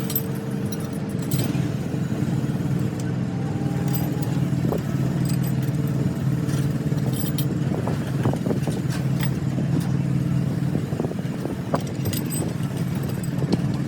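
An engine running steadily at an even speed, with scattered light metallic clinks.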